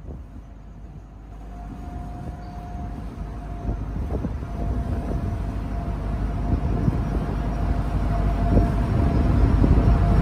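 Ferry engine rumble and rushing water noise growing steadily louder, with a faint steady whine throughout.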